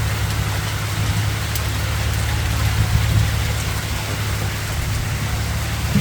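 Hailstorm: hailstones falling steadily, a dense even patter of small impacts, over a steady low rumble.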